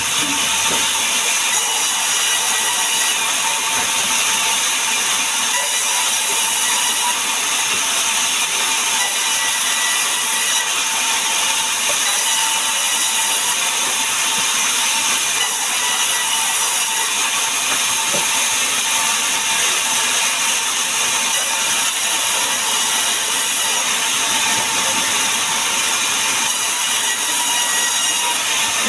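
Large vertical band saw of a sawmill running and cutting through logs, a steady loud noise with a faint high whine held throughout.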